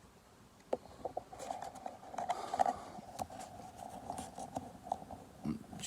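Pokémon trading cards being handled and slid one behind another: scattered soft clicks and papery scrapes.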